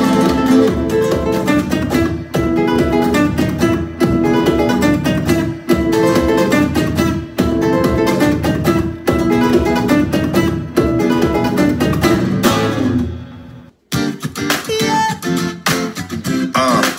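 Upbeat dance music with guitar and a steady beat. It fades out about thirteen seconds in, and a new guitar-led track starts sharply about a second later.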